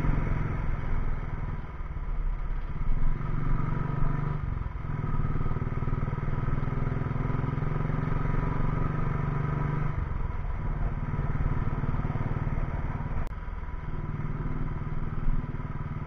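Motorcycle engine running at riding speed, its low steady note dipping briefly three or four times, with a single sharp click near the end.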